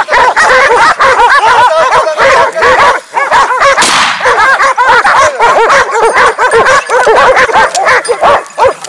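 A pack of hunting dogs barking and yelping nonstop at a shot wild boar, many voices overlapping, with a brief harsh noise about four seconds in.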